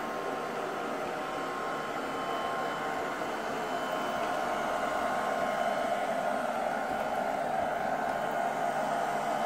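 Haier SWR Pathfinder robot vacuum running with a steady whir, not so loud; it grows slightly louder about halfway through.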